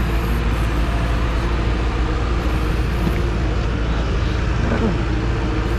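Steady low engine rumble from a diesel passenger train standing at the platform, its engine running at idle.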